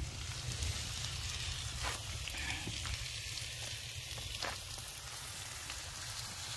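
Pork sizzling on a hot gopdol stone griddle over a wood fire: a steady frying hiss, with a couple of faint clicks.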